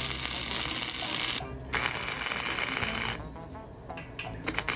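100 V gasless flux-core semi-automatic welder laying short beads: three bursts of arc crackle and spatter, each a second or so long, separated by brief pauses.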